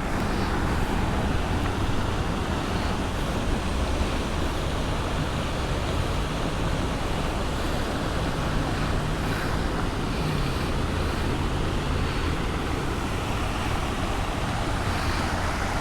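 Steady wind rushing and buffeting the microphone, a low rumble with no breaks.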